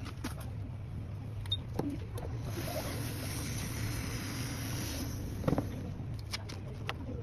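Light clicks and taps of small repair tools and phone parts over a steady low hum, with a hiss that lasts about three seconds in the middle.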